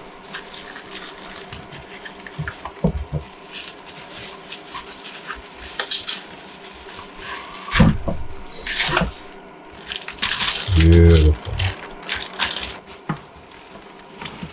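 Bubble wrap and plastic packaging rustling and crinkling as a spindle motor is unwrapped and lifted out of styrofoam packing, with scattered small handling knocks.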